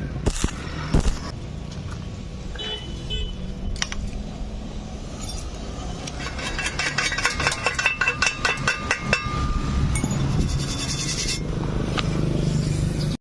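Workshop metalwork sounds: scraping, then a quick run of sharp, ringing taps in the middle, over a steady low hum.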